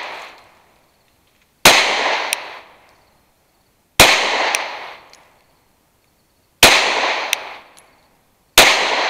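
Four single shots from a Glock 43X 9mm pistol firing Winchester 115-grain white box rounds, slow aimed fire about two to two and a half seconds apart, each bang ringing out and dying away over about a second.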